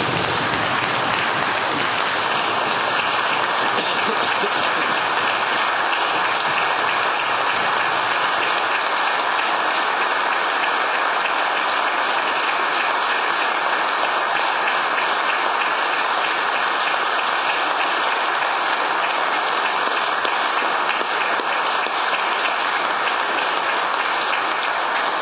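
Applause from many people clapping at once, dense and steady at one level, long sustained.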